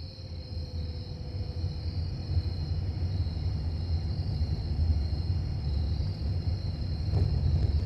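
A steady low rumble that comes in just before and slowly grows louder, over a constant high-pitched hum.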